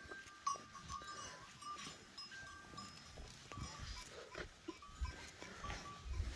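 A pen of goats heard faintly, with thin, bell-like ringing tones scattered through and a few low thumps in the second half.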